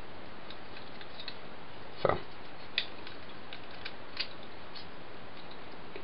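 Faint, scattered clicks of hard plastic toy parts being handled and snapped while a transforming action figure is changed into tank mode, over a steady hiss.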